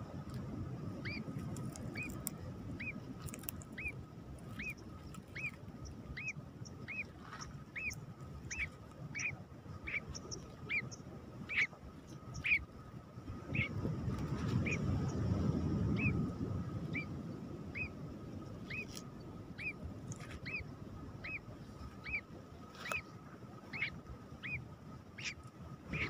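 Nightjar chick peeping: short, high calls repeated steadily, a little under two a second. The chick appears weak and hungry. A low rumbling noise underneath grows loudest about halfway through.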